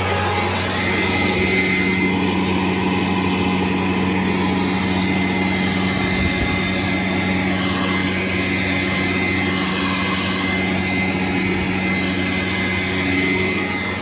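Sanitaire commercial upright vacuum cleaner running over carpet with a steady motor hum.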